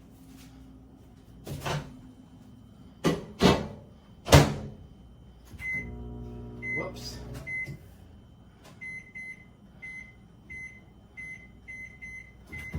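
Microwave oven being loaded and set: a few clunks of the door and bowl, then a long run of short, evenly spaced keypad beeps as the timer is entered.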